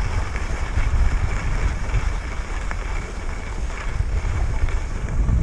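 Wind buffeting an action camera's microphone during a run down a groomed ski slope: a low, gusty rumble over a steady hiss of sliding on snow.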